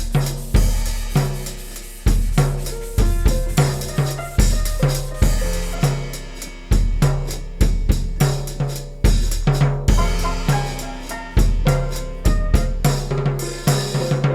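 Background music with a steady drum-kit beat and a deep bass line.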